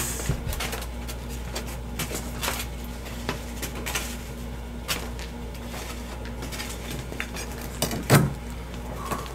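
Light clicks and knocks of disposable plates being handed around and set down on a table, with one louder knock near the end.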